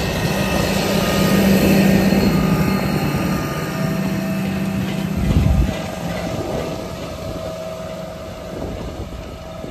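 John Deere tractor's diesel engine running steadily as it pulls a disc seed drill past. It is loudest in the first few seconds and fades as the tractor draws away. A brief low thump comes about five seconds in.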